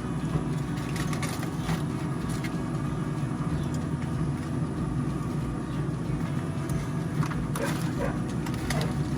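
Steady hum of a lit Pit Boss pellet grill, its combustion fan running, with a few light clicks and knocks from handling the grill and the meat probe.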